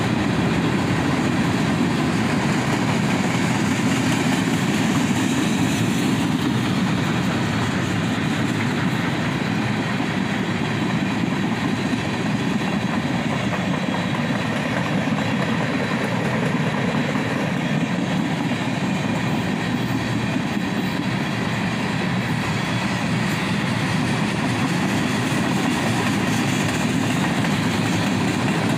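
Flatcars of an empty continuous welded rail train rolling past on the track: a steady rumble of wheels on rail.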